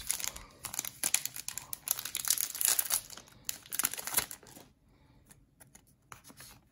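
Foil Pokémon TCG booster pack wrapper crinkling and tearing as it is ripped open, then a few soft clicks as the cards inside are handled.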